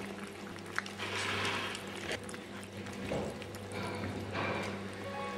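Several cats eating wet cat food from one bowl: wet chewing and lapping with many small clicks, over a steady low hum.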